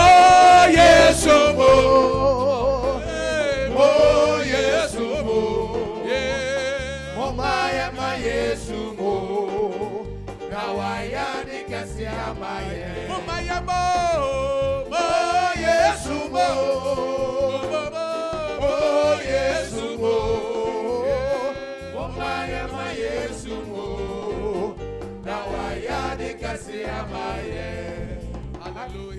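Live gospel praise music: a singer's voice with wavering, vibrato-laden lines over band accompaniment, getting quieter toward the end.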